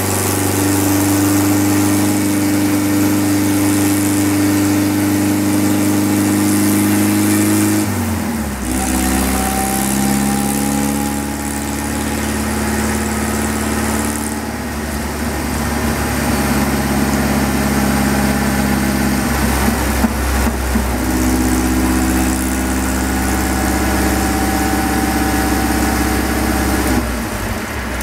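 Supercharged 1600 cc air-cooled VW Beetle flat-four (AMR500 supercharger on a stock long block) running on a chassis dyno at steady engine speeds. The engine note drops to a lower speed about eight seconds in, comes back up around twenty seconds, and drops again near the end.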